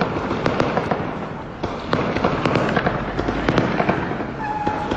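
Gunfire: many rapid, irregular shots, several of them close together, in an exchange of fire between police and gunmen.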